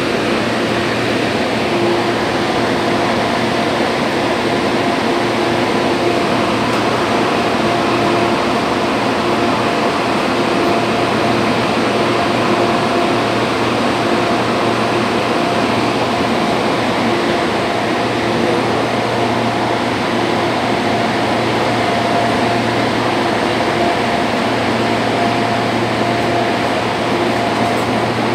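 Interior noise of a Hong Kong MTR metro car under way: a steady rushing rumble of the running train with a hum that fades in and out, mixed with the car's air conditioning.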